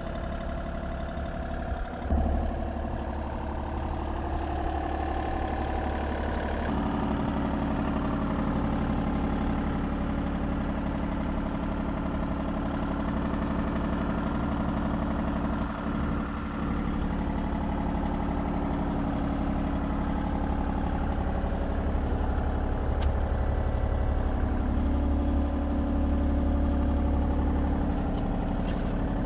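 Kubota U35-4 mini excavator's diesel engine running steadily at idle, with a short knock about two seconds in.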